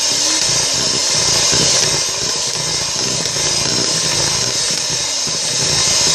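Electric hand mixer running steadily, whisking cake batter in a bowl.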